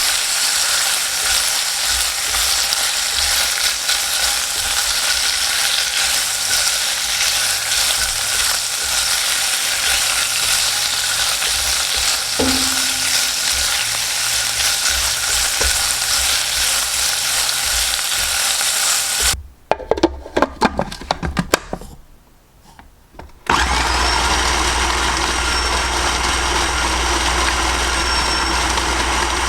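Meat sizzling steadily in a hot pan. About two-thirds of the way through, a few sharp knocks and clatters come, then a short lull, and a kitchen blender starts and runs at a steady whir.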